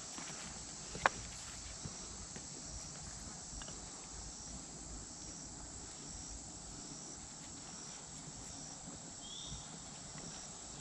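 Insects chirping in woodland: a steady high hiss with a short chirp repeating evenly, a little under twice a second. A single sharp click about a second in.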